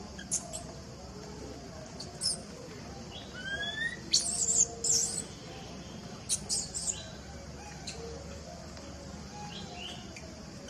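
Short, shrill chirps and squeaks, some sweeping upward in pitch, coming in scattered clusters with the loudest about four to five seconds in, over a steady high hiss.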